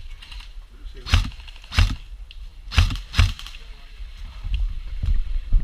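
Airsoft gun firing four single shots, sharp cracks in two pairs, with quieter knocks of movement afterwards.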